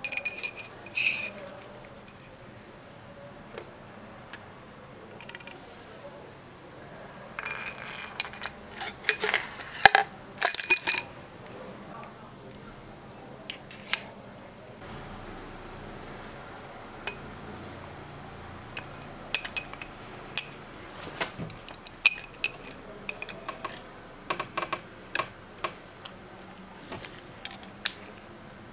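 Metal parts of a scooter's front fork clinking and tapping as the damper rod and fork tubes are handled during reassembly, with a dense run of ringing metallic clinks about eight to eleven seconds in and scattered taps later on.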